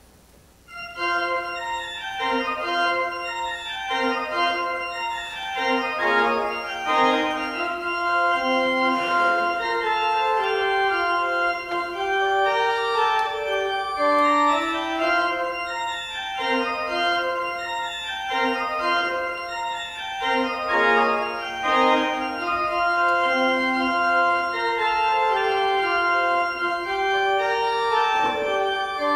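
Church organ playing, held chords with a moving melody, starting about a second in.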